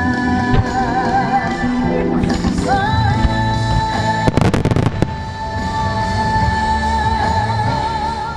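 A song with a singer holding long notes, played under a starmine fireworks display; aerial shells burst as sharp bangs over the music, with a rapid cluster of bangs about four and a half seconds in.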